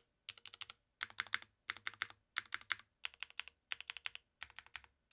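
Custom Avalon mechanical keyboard with Gateron Summertime linear switches, an FR4 plate and GMK keycaps being typed on: quick runs of four to six keystrokes with short pauses between them, like words being typed.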